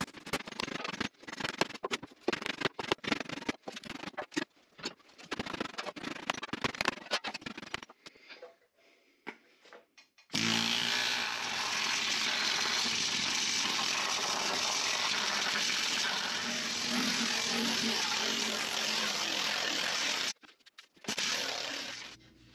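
Rapid hammer blows on a sheet-steel panel held against a wooden block, in quick irregular runs for about eight seconds. After a short pause, a planishing hammer runs with a loud, steady rattle for about ten seconds and stops suddenly, then gives one short burst near the end.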